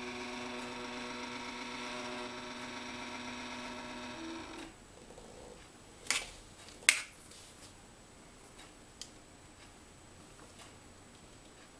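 Stepper motor of a camera pan-tilt head whining steadily at a fixed pitch as it turns the camera bracket, stopping about four and a half seconds in. Then two sharp clicks under a second apart, with a few faint ticks after.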